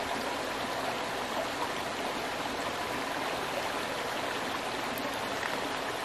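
Shallow creek running over rocks and stones, a steady water sound.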